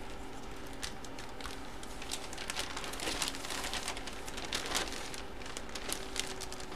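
Packaging being handled: a run of light, irregular crinkles and crackles.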